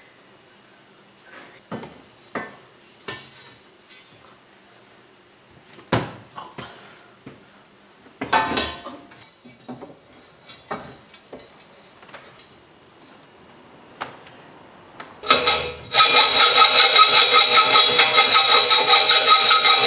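Metal and wooden parts clinking and knocking as they are handled on a workbench. Near the end a loud motor starts and runs steadily for a few seconds.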